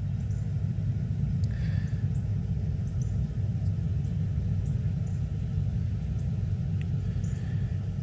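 A steady low mechanical rumble with a faint hum in it, and a few faint, short high chirps scattered over it.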